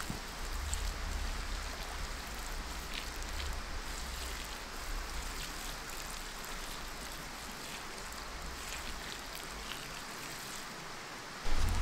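Water poured from a pot onto a campfire's hot ash and embers, a steady splashing pour that douses the fire as steam rises. It breaks off into a sudden louder rumble right at the end.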